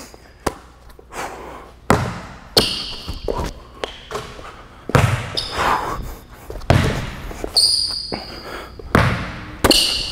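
A basketball bouncing on an indoor court floor several times, with short high squeaks of sneakers on the court in between.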